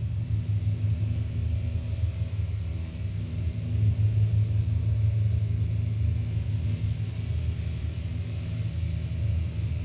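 Deep, steady rumbling drone from analog synthesizers playing experimental noise music, with a faint hiss above it, swelling slightly about four seconds in.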